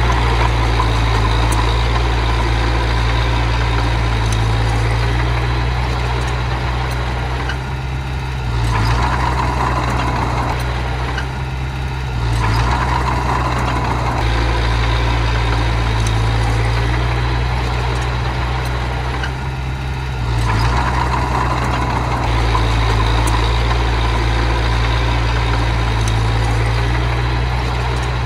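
Heavy diesel engine of earthmoving machinery running loud and steady, with its note changing briefly three times, about eight, twelve and twenty seconds in, as the load shifts.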